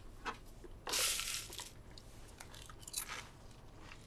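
Someone biting and chewing something crunchy: a loud crunch about a second in, followed by a few smaller crunches and clicks near the three-second mark.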